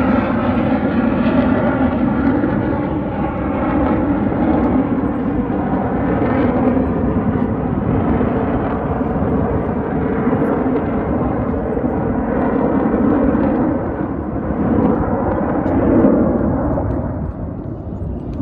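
Formation of Blue Angels F/A-18 Super Hornet jets passing overhead: a loud, continuous jet engine roar that swells about two-thirds of the way through and eases toward the end.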